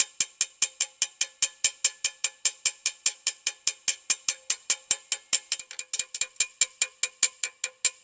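Rapid, light taps of a small dent hammer on a brass trombone slide tube held on a steel dent rod, about six strikes a second, each with a short metallic ring. The taps work down the tube's crowned high spots and are kept light so as not to bubble the tube out.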